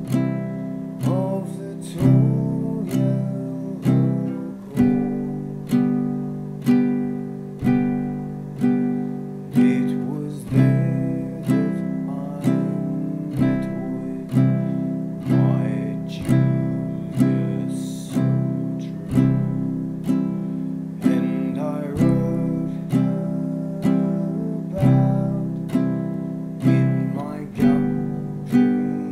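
Mahalo ukulele strummed in a steady three-beat rhythm, about one strum a second, playing the verse's alternating C and G chords.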